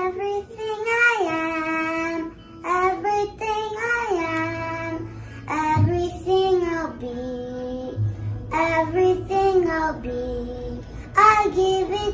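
A young girl singing a song solo, in melodic phrases a couple of seconds long with short breaths between them.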